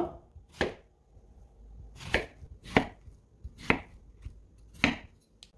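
Large kitchen knife slicing through a Korean squash and knocking down onto a wooden cutting board: about five separate chops, irregularly spaced a second or so apart.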